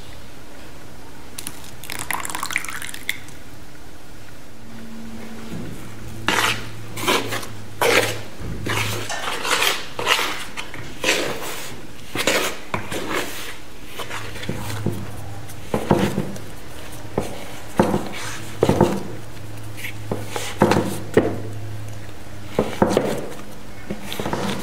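A spoon scraping and knocking against a plastic mixing bowl while stirring oil and water into flour to make a dough: a quick, irregular run of clicks and scrapes.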